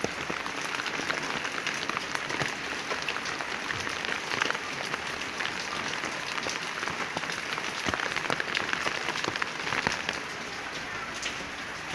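Steady rain falling on garden plants and leaves, a dense patter of countless small drops that eases slightly near the end.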